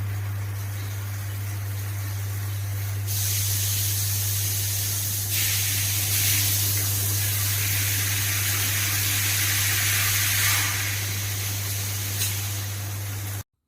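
Water spraying and hissing through a water heater setup, with a steady low hum underneath. The spray grows louder about three seconds in and again a little after five, then cuts off abruptly near the end.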